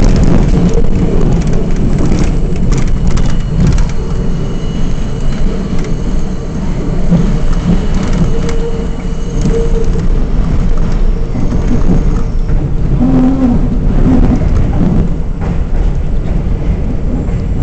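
Interior of an R42 subway car in motion: a loud, steady rumble of steel wheels on the rails, with clicks over rail joints and a couple of short squeals.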